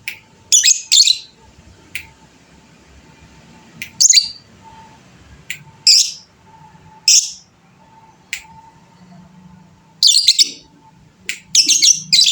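Lovebird giving short, shrill, high-pitched calls every second or two, with quicker clusters of calls near the end.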